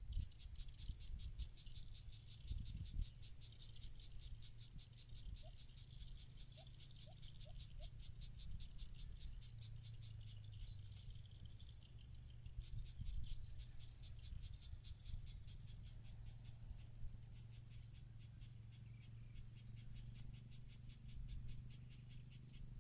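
Insects chirring in a fast, steady pulse train, with a low rumble of wind on the microphone underneath.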